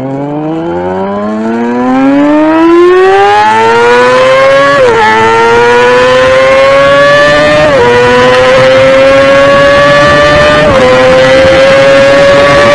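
Suzuki Hayabusa's inline-four engine at full throttle, its pitch climbing and then dropping sharply at three upshifts about three seconds apart. Each higher gear pulls more slowly as speed builds.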